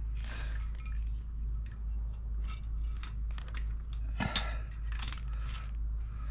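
Faint clicks and rustles of hands working at the oil strainer port under a motorcycle engine, fitting the gauze strainer back into the casing, with one louder short knock about four seconds in. A steady low hum runs underneath.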